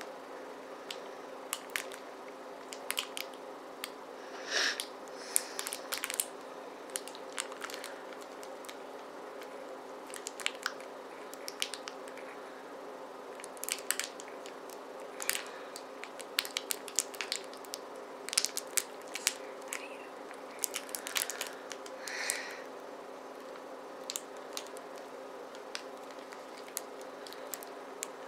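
Plastic wrapper of a Keebler Club & Cheddar sandwich cracker pack being slowly peeled open, crinkling and crackling in scattered small clicks with a few brief louder rustles. A steady low hum runs underneath.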